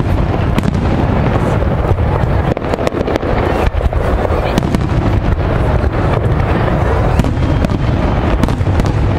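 Aerial fireworks shells bursting in quick succession: a dense, loud run of bangs and crackles.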